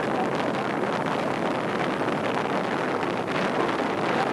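Steady rush of wind buffeting the microphone at the bow of a moving sightseeing boat, with the wash of water along the hull beneath it.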